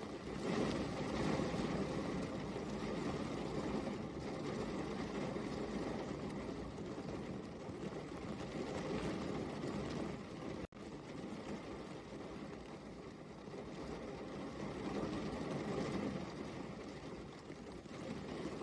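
Steady rain falling, a dense even hiss that swells and eases, cutting out for an instant about ten seconds in.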